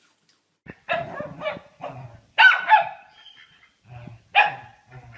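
A dog barking: three loud barks, starting about a second in, the middle one the loudest.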